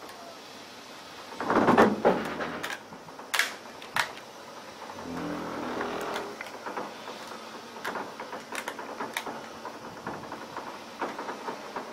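Slate quarry incline carriages setting off down the incline on their haulage cable. A loud clanking rumble comes about two seconds in, then a few sharp metal knocks, then lighter rattling and clicking as the carriages run on down the rails.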